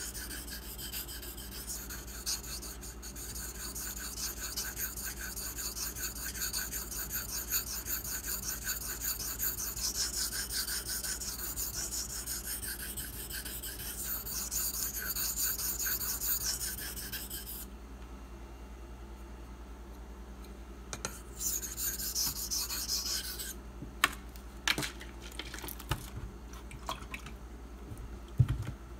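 Bark River Bravo EDC's 154CM steel blade being stroked back and forth across a whetstone: a steady scraping rub that stops a little over halfway through. After a short pause comes a brief run of strokes, then scattered clicks and knocks, with a sharper knock near the end.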